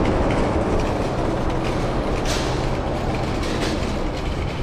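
Steady rush of outdoor noise: wind rumbling on a handheld phone's microphone, with parking-lot traffic behind it.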